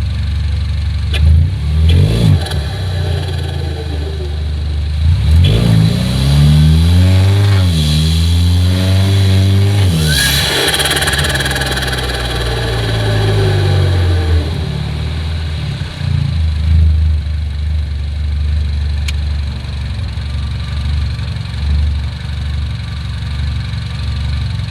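Peugeot 408 THP's 1.6-litre turbocharged four-cylinder idling and being revved by hand: a short blip, then a longer rev rising in pitch. When the throttle snaps shut about ten seconds in, a hissing turbo flutter rushes out and fades over a second or two before the engine settles back to idle with a few small blips.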